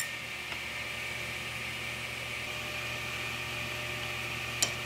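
Steady whir of workshop machinery left running between table-saw cuts, with a low hum under it. One sharp click near the end.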